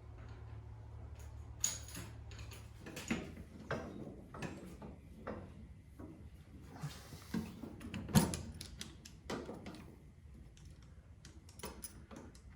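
Scattered metallic clicks and knocks of front suspension parts being handled and pushed on while working on a coilover strut, the loudest knock about eight seconds in, over a low steady hum.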